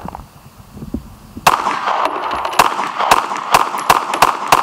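Gen 4 Glock 26 9mm pistol firing a string of about eight shots, roughly two a second, starting about a second and a half in. The dirt-fouled pistol, flushed with LPS-2 lubricant, is cycling each round without a stoppage.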